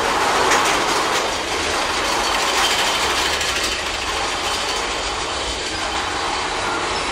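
Big Thunder Mountain Railroad mine-train roller coaster cars rattling and clattering along the track, a steady noisy run with a few sharp clicks in the first second or so.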